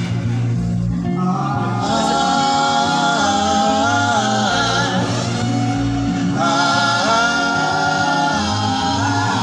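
Band music with singing: steady bass notes under a sung vocal melody that comes in about a second in, played live through a sound system during a sound check.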